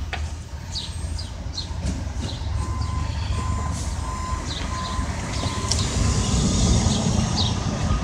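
Steady low rumble of a large vehicle's engine, with a reversing alarm beeping about twice a second for a few seconds midway, and short high chirps now and then.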